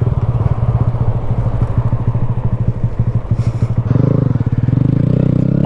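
Honda Grom's single-cylinder four-stroke engine running at low speed with a choppy, pulsing note, evening out into a steadier note about four seconds in.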